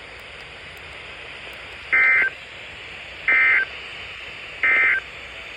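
Three short bursts of EAS SAME digital data tones, about a second and a half apart, over a steady radio hiss. They are the end-of-message (EOM) code that closes a NOAA Weather Radio alert.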